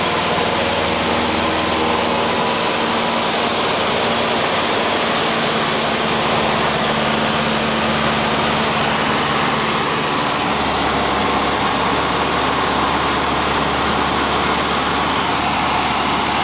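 Cessna light aircraft's piston engine and propeller running steadily: a loud, constant drone. Its low tone shifts slightly about ten seconds in.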